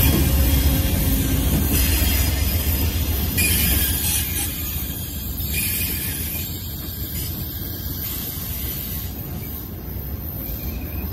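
Amtrak passenger train rolling slowly past into a station stop. The low rumble of the trailing Siemens Charger diesel locomotive fades over the first seconds, leaving the Amfleet passenger cars' wheels running on the rails. The wheels squeal high in stretches, and the whole sound grows steadily quieter.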